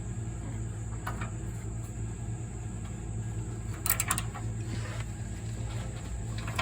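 Hand tools on the exhaust as a new downstream oxygen sensor is tightened with an oxygen sensor socket: a few short metallic clicks, one about a second in and a quick cluster near four seconds, over a steady low hum.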